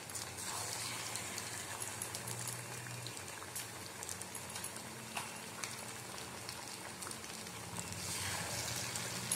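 Hot oil sizzling and crackling in a kadhai as batter-coated bottle gourd slices deep-fry, growing a little louder about eight seconds in as another coated slice goes into the oil.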